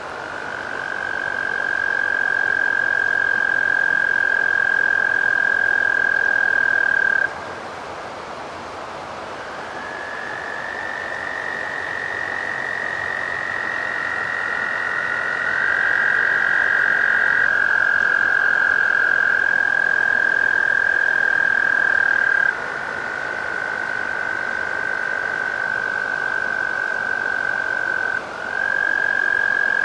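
Small chorus of American toads: long, steady, musical trills lasting several seconds each, with two or three toads overlapping at slightly different pitches. One trill stops about seven seconds in and others take over a couple of seconds later. Another drops out a little past two-thirds of the way, and a new trill starts near the end.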